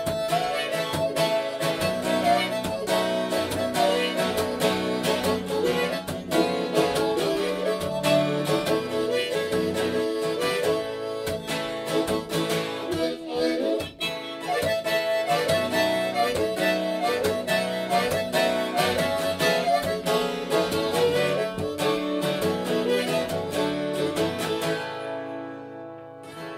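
Amplified harmonica solo through a rack-mounted harmonica microphone, played over strummed guitar keeping a steady rhythm; the music stops about a second before the end.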